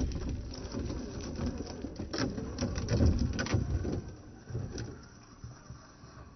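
Radio-controlled Vaterra Ascender crawler truck driving over rocks and gravel: its electric motor and drivetrain running, with sharp clicks and crunches from the tyres and stones. The sound fades after about four seconds as the truck moves away.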